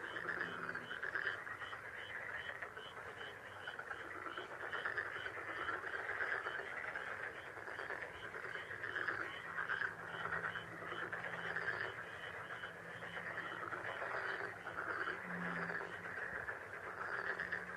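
Dense, steady chorus of small calling animals, with a regular high pulse repeating about two to three times a second. A low coo sounds once about fifteen seconds in.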